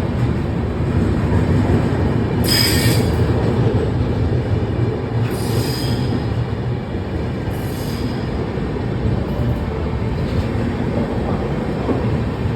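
Rajdhani Express passenger train running on the rails with a steady low rumble, and three short high wheel squeals, about two and a half, five and seven and a half seconds in.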